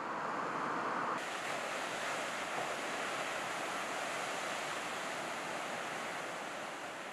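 Heavy ocean surf breaking on an outer reef: a steady rush of wave noise with wind on the microphone. The sound changes suddenly about a second in, brighter and fuller after the change.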